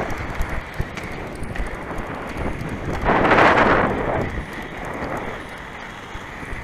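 Wind buffeting a moving action camera's microphone over a low rolling rumble from travel along pavement, with a few faint clicks. About three seconds in, a louder rush of noise swells for about a second, then fades.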